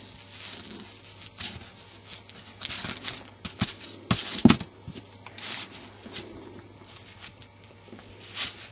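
Hands working a plasticine model on a tabletop: soft rustles and scattered light clicks, with a louder knock about halfway through.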